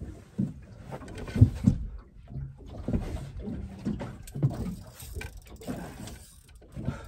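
Irregular low knocks and bumps, with a few short clicks, as a fishing rod and its gear are handled on a boat.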